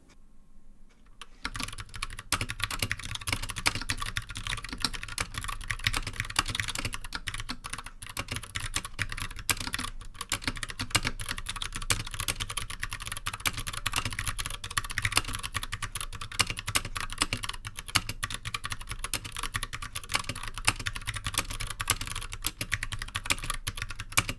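Fast, continuous typing on a MonkeyKing iGK61 60% mechanical keyboard with Kailh BOX Royal tactile switches and ABS doubleshot keycaps: a dense stream of key clacks that starts about a second in. Quite a few of the switches, the A key most of all, have turned clicky with use.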